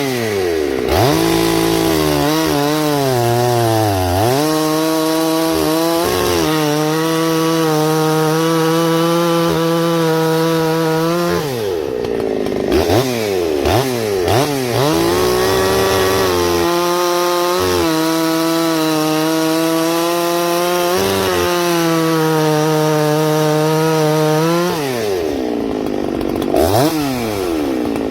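Ported Husqvarna 288XP two-stroke chainsaw ripping large balsam fir blocks. The engine holds high revs in the cut, its pitch sagging and recovering under load. It drops back toward idle about 12 seconds in and again near the end, blips, then revs back up.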